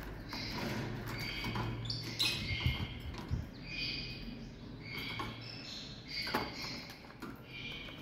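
Lovebirds chirping: a rapid run of short, high chirps, with a few sharp clicks among them.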